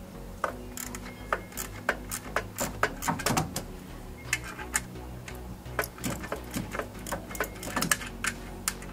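Ratchet wrench clicking in short irregular runs as a 12 mm bolt on the side of the alternator is loosened.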